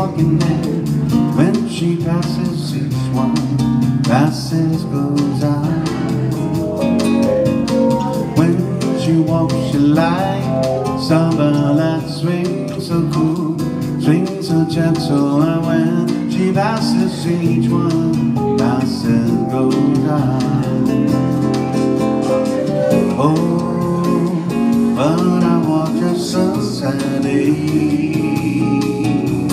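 Live acoustic guitar and electronic keyboard playing an instrumental passage of a slow song, the melody line sliding up and down between notes.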